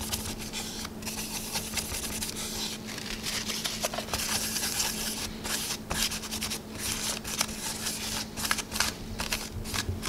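Cloth rubbed back and forth over a CPU's metal heat spreader, a continuous uneven scrubbing, as old thermal paste is wiped off the processor.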